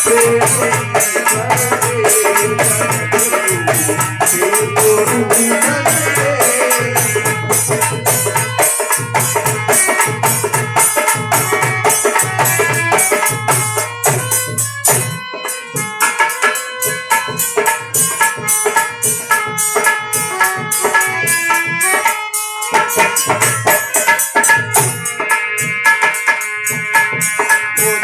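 Dholak playing a fast, steady rhythm of dense strokes with a deep bass pulse, under a sustained melodic instrumental line; the bass strokes drop out briefly about halfway through and again near the end.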